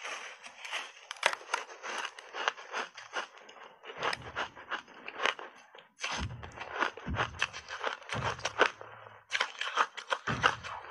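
Close-up biting and chewing of frozen purple ice chunks coated in powdered milk: dense, rapid crunching and crackling of ice breaking in the mouth, with a few deeper thuds in the second half.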